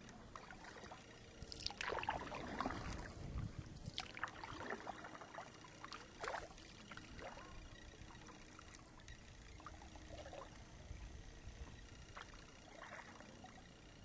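Kayak paddle strokes in lake water: faint splashes and drips from the paddle blades every second or two, stronger in the first half.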